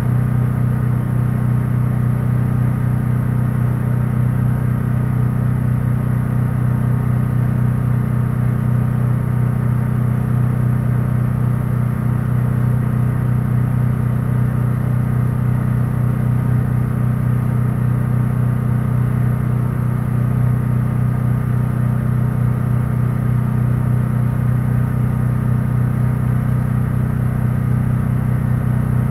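An engine idling, a steady low hum that holds the same pitch throughout with no revving.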